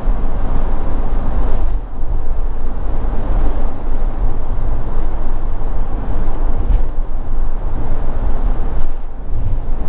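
Motorhome cruising at road speed, heard from inside the cab: a steady low drone of engine, tyres and wind, dipping briefly twice.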